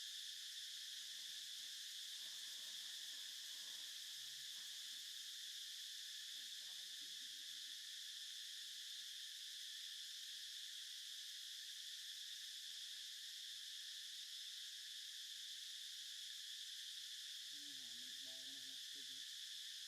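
Steady, high-pitched insect chorus of crickets or cicadas droning without a break, with a faint short voice-like call near the end.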